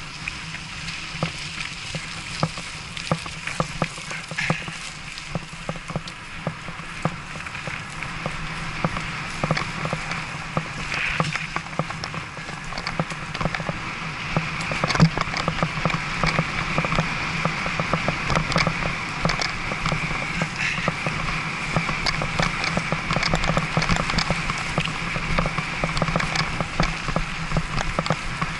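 Bicycle riding along a gritty forest path: steady tyre rumble with a constant stream of small rattles and clicks from the bike, growing louder about halfway through.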